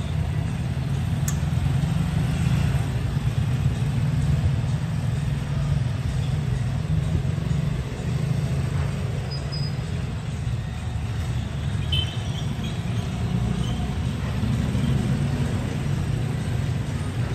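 Outdoor ambience: a steady low rumble throughout, with a few faint high chirps about twelve seconds in.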